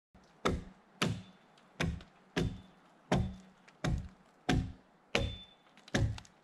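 Axe chopping into a log: a steady run of about ten sharp wooden blows, roughly one every two-thirds of a second, each with a short dull ring.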